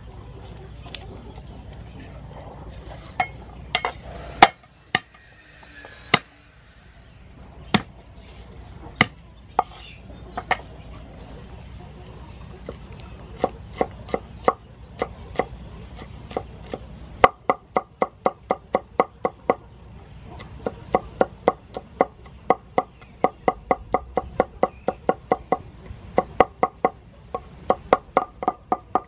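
Cleaver chopping garlic on a wooden cutting board. The knocks are few and scattered at first. From about halfway they become rapid, even chopping at about five strokes a second as the cloves are minced.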